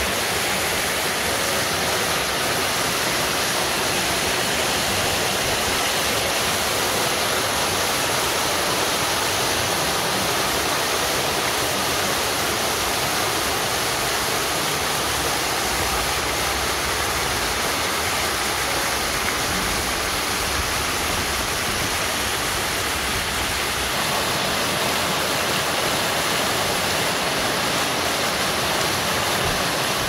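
Bigăr waterfall: water falling in many thin streams over a moss-covered rock ledge and splashing into the pool below, a steady rushing splash.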